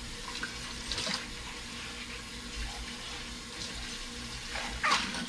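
Kitchen faucet running steadily into a sink as dishes are washed by hand, with two brief clatters of dishware: one about a second in and a louder one near the end.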